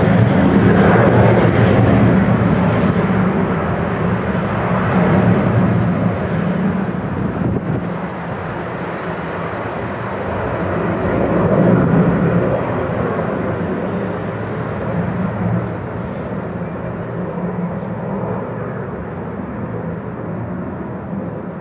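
Cessna Citation CJ2+ business jet's twin Williams FJ44 turbofan engines at takeoff power as it lifts off and climbs away. Loud jet noise, swelling again about halfway through and then slowly fading.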